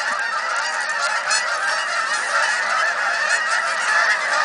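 A large flock of Canada geese honking, many calls overlapping without a break.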